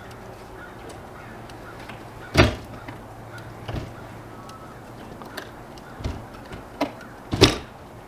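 Sharp clicks and knocks of wire connectors being handled and pulled at an RV furnace's control board, about six in all, the loudest about two and a half seconds in and again near the end. A steady low hum runs underneath.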